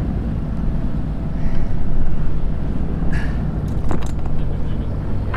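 Sailing yacht's auxiliary engine running steadily under load, with the boat aground on a sandbank, and wind on the microphone. A couple of brief knocks about three and four seconds in.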